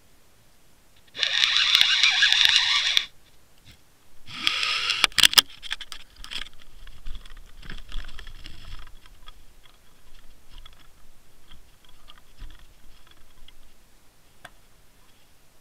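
Two loud bursts of rushing water noise as a line-mounted underwater camera is hauled up through the surface, the second with sharp knocks. Then a run of softer clicks, knocks and scrapes as the camera housing is handled on the boat.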